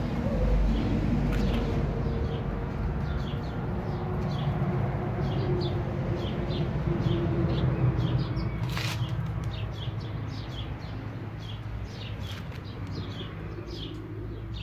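Small birds chirping in quick, repeated short notes over a steady low rumble, with one sharp click about nine seconds in.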